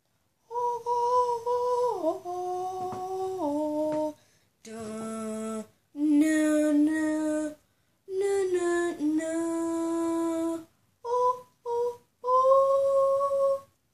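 A person's voice singing a slow, wordless tune in long held notes that step and slide between pitches, in several phrases with short breaths between them.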